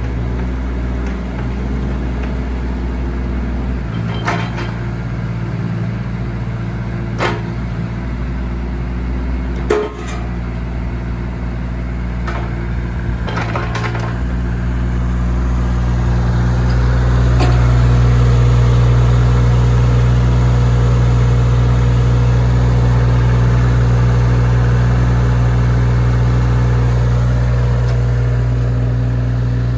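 Diesel engine of a JCB 8014 mini excavator running steadily, with several sharp knocks during the first half. About halfway through the engine note rises and stays louder, as under load or higher revs.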